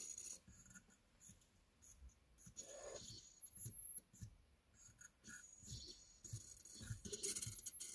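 Xeryon Crossfixx ultrasonic piezo motors driving an XY stage and a rotation table in short moves: faint, stopping-and-starting buzzes and scratchy ticks, some with a thin high whine, busiest near the end.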